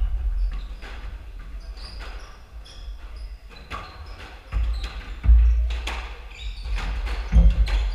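Squash rally: the ball cracking off rackets and the walls in a quick run of sharp hits, with sneakers squeaking and heavy footfalls thudding on the wooden court floor.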